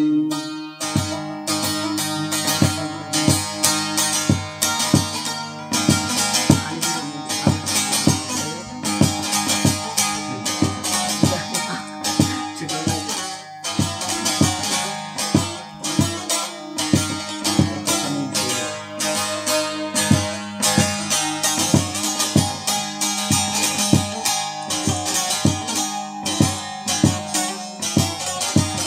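Bağlama (saz), the Turkish long-necked lute, played solo in an instrumental interlude of a folk song: fast plucked and strummed strokes over a steady ringing drone.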